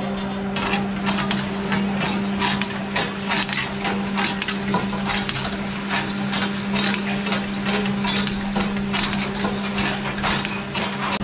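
Rapid, irregular knocking and clattering of food-preparation work, several sharp knocks a second, over a steady low hum.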